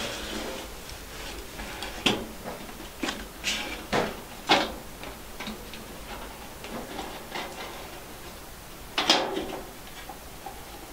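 Hands working the small doors of a household Shinto shrine (kamidana) open: scattered sharp clicks, knocks and light scrapes of the doors and their metal trim. A cluster of clicks comes between two and four and a half seconds in, and a louder knock about nine seconds in.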